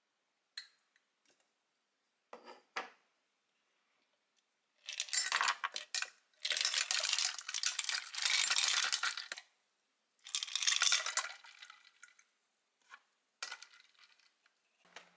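Clinking of ice and glassware while iced tea is made in a glass teapot: a few short clinks, then three longer stretches of dense rattling clinks, about five, seven and ten seconds in.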